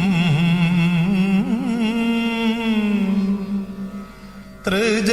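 Male voice singing a long, wavering held note in Carnatic devotional style, fading out about three seconds in; a new sung phrase begins near the end.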